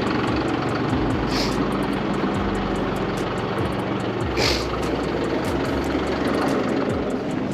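A farm tractor and an SUV with their engines running steadily as the tractor's loader pushes the SUV out of the snow. There are two brief hisses, about a second and a half in and again past four seconds.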